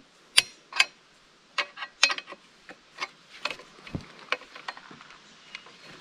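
About a dozen sharp, irregularly spaced metal clicks and clacks from a chainsaw mill's frame and crank winch being handled and adjusted on a log.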